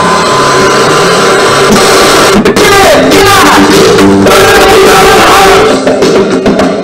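FM radio broadcast playing loudly through a portable CD boombox's speakers: music with singing, changing abruptly about two and a half seconds in as the tuning knob moves between stations.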